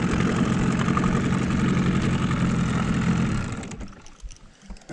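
Outboard motor running steadily at trolling speed, then shut off about three and a half seconds in.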